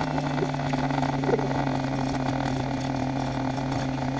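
Small quadcopter's brushless motors running with the propellers spinning while the drone lies crashed in grass: a steady mechanical hum that cuts off suddenly near the end.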